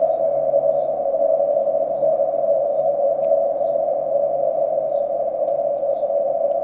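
Radio receiver static played through a Daiwa AF-606K all-mode audio filter and its small speaker: a steady hiss squeezed by the repaired filter into a narrow band of middling pitch. Faint short high chirps repeat a little under once a second over it.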